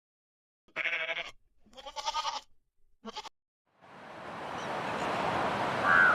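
A bleating farm animal calls three times: two longer wavering bleats about a second and two seconds in, then a short one. From about four seconds a steady outdoor noise haze, like wind, fades in and grows, with a brief honk-like call near the end.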